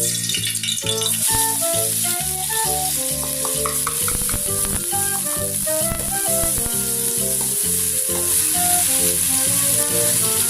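Food frying in hot cooking oil in a pan: a loud, steady sizzle that starts suddenly right at the beginning, as the food goes into the oil. Background music plays over it.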